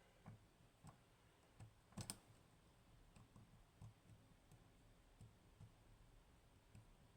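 Faint, irregular small clicks of a lock pick and tension wrench working the pins of an Agent LS5 high-pin-count lock, with a sharper double click about two seconds in.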